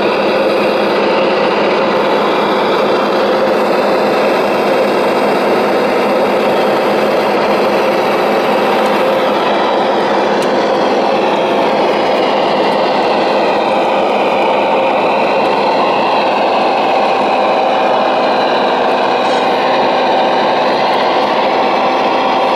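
Radio-controlled Liebherr 970 model hydraulic excavator working with its timber grapple: a steady mechanical hum and whir whose higher tones slowly shift in pitch as the boom moves.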